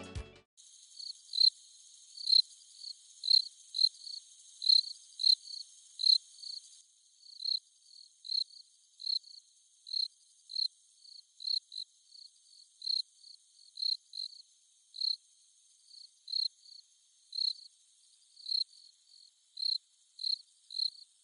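Cricket chirping in short, evenly repeated chirps, a little more than one a second, over a faint high hiss.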